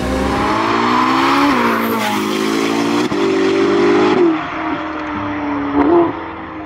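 Ferrari SF90 Spider's twin-turbo V8 accelerating hard away, its note rising and then dropping sharply at an upshift about two seconds in and again at about four seconds. After that it runs steadier and fades as the car pulls away.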